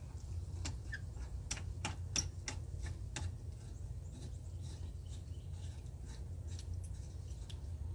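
Garden hose's coupling being screwed back onto an outdoor hose bib by hand: a scattered run of light clicks and ticks, thickest in the first three seconds and thinning out after, over a low steady rumble.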